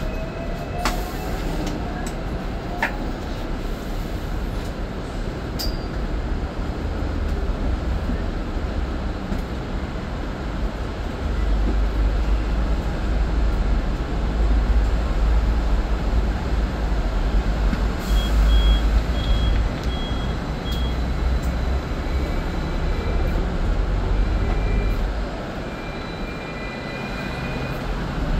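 Hong Kong double-decker tram heard from the upper deck: steady running and street noise, with a low rumble that grows louder about a third of the way in as the tram travels along the track. A few sharp clicks come early, and a short string of quick high beeps sounds about two-thirds through.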